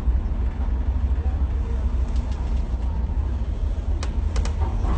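Steady low vehicle rumble under a noisy hiss, with a few sharp clicks about four seconds in.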